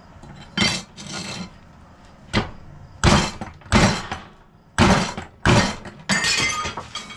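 Rubber mallet striking steel angle iron clamped in a bench vise, about seven irregularly spaced blows bending the strip over. Some blows leave a short metallic ring.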